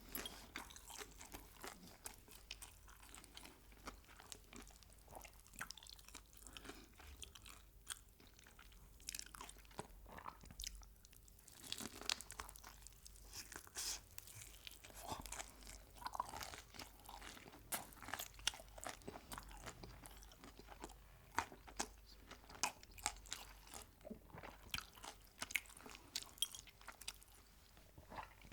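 Close-miked eating of crispy fried chicken: repeated crunching bites and chewing, with many sharp crackles that come more often in the second half.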